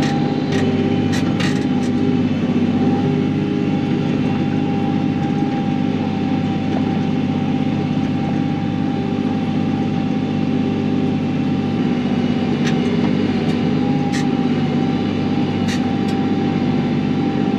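KIOTI NS6010 compact tractor's diesel engine running steadily, with a steady whine over it and a few sharp clicks and knocks scattered through.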